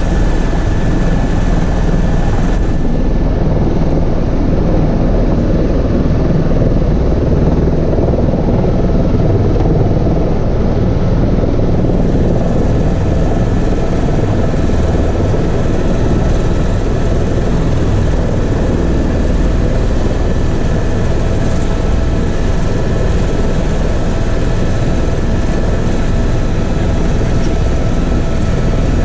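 Tour helicopter's turbine engine and main rotor running steadily, heard from inside the cabin: a dense low rumble with a steady high whine over it.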